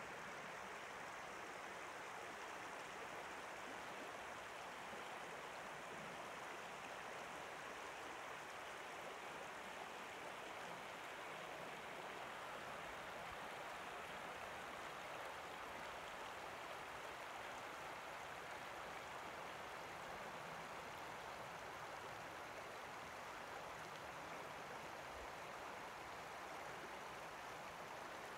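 Shallow river water running over rounded cobbles and through riffles: a steady, even rushing with no breaks.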